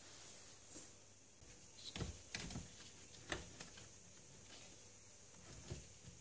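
Faint clicks and knocks of a car radio head unit being handled and slid back into its dashboard slot, with plastic and metal taps clustered about two to three and a half seconds in.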